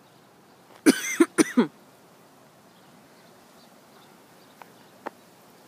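A dog barking: three quick, loud barks about a second in.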